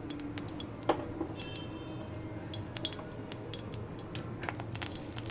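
Scattered light clinks and taps of a spoon against a kadhai and containers as ghee is put into the pan, with a sharper knock about a second in, over a steady low hum.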